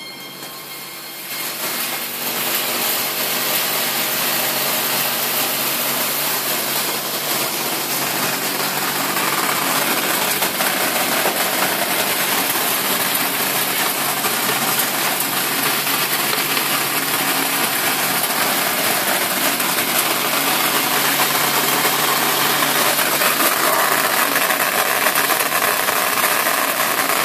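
Sea salt colour sorting machine running: a steady mechanical hum under a dense, even hiss, growing louder over the first couple of seconds and then holding steady.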